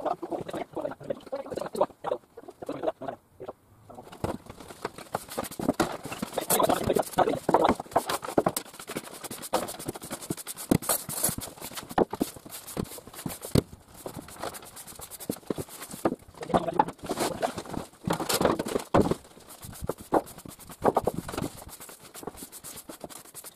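Hand brush sweeping grit and debris across a wooden floor: runs of quick scratching strokes with short pauses between them.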